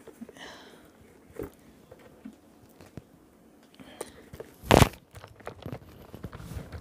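Rustling and small clicks of a handbag and its packaging being handled, with one loud, brief thump about five seconds in.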